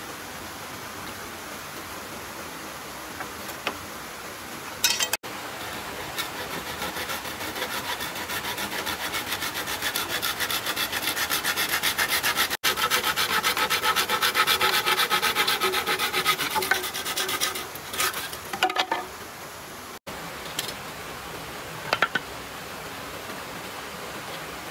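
Machete blade drawn rapidly back and forth across a bamboo pole, a fast, even rasping that swells and then stops after about thirteen seconds. A few single sharp knocks of wood come before and after it.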